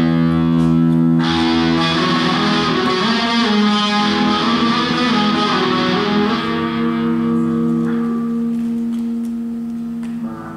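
Solo electric guitar played through a small amplifier: held notes and chords ringing out and changing, easing off near the end.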